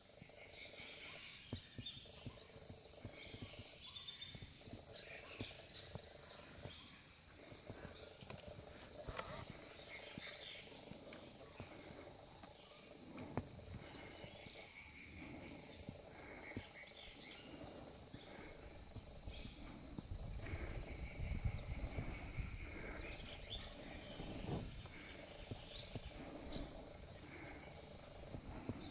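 Steady, high-pitched insect chorus in dry forest, with faint scattered short calls and some low rumbling and knocks about two-thirds of the way through.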